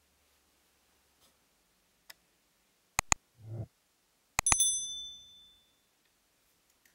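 Subscribe-button animation sound effect: two quick mouse clicks about three seconds in, a short whoosh, then another click and a bright notification-bell ding that rings out for about a second.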